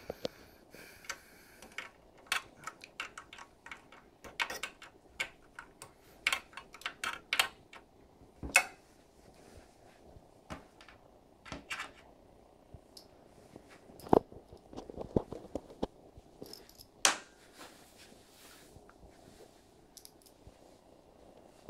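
Irregular small clicks, taps and rattles of hands handling small metal and plastic hardware: screws, a screwdriver and the display mount during assembly, with a few sharper knocks among them.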